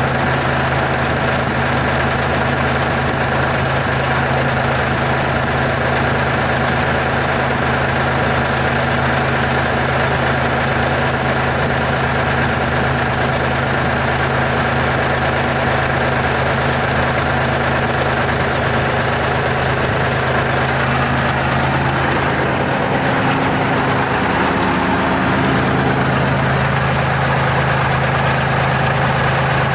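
Diesel engine of a Terex R-35 rigid dump truck running steadily, its note shifting briefly about three-quarters of the way through before settling back.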